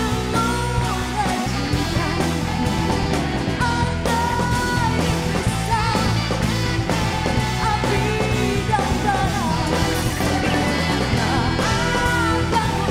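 Rock music with a sung melody over a steady band backing, playing at a constant loud level.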